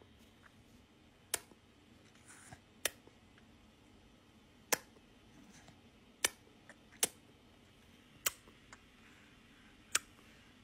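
A baby making sharp clicking noises with its mouth, about seven separate clicks spaced irregularly a second or two apart.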